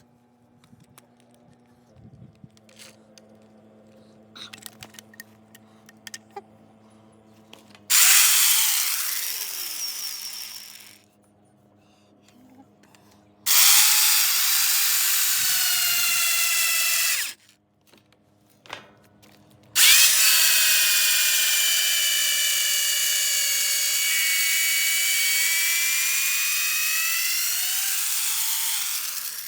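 Power drill boring into a wood stump in three runs: a short one that winds down, a second of about four seconds that stops abruptly, and a long run of about ten seconds. The motor whine sags in pitch under load and rises again near the end. Faint clicks come before the first run.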